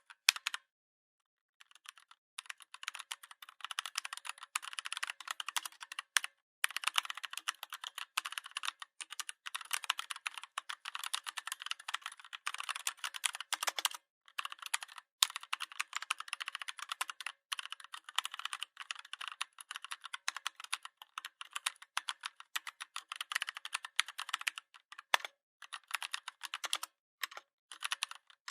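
Fast, continuous typing on a computer keyboard: a dense run of key clicks, broken by brief pauses, the longest about a second in.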